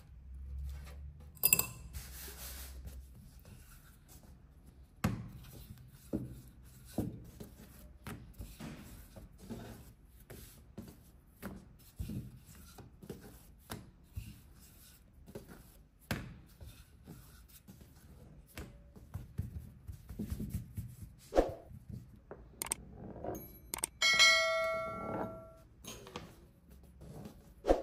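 Dough-handling noises: a wooden rolling pin knocking and rolling on the work surface, hands setting dough down, and scattered thunks. About 24 seconds in, a short metallic ring sounds and dies away over a second or so.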